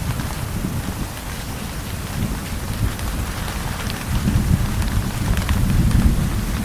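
Steady heavy rain, with scattered individual drops ticking, and a low rumble of distant thunder that swells in the second half.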